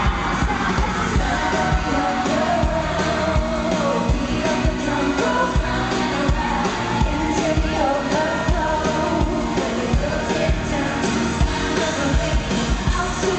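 Live pop music with a steady drum beat and sung lead vocals, played loud through a concert sound system.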